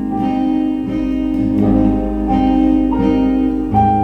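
Live band playing an instrumental passage between sung lines, led by guitar over a bass line, the chords changing about every second.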